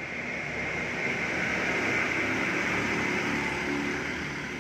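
A vehicle passing on the road: a hiss with a low engine hum that swells to a peak about two seconds in and then fades.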